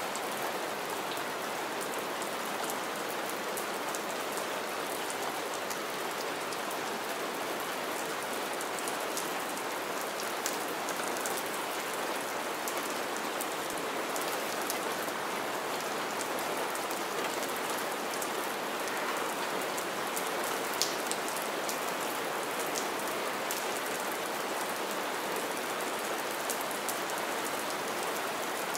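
Steady rain falling on puddled ground strewn with pine needles, an even hiss with scattered sharper drop splashes, one a little louder about twenty seconds in.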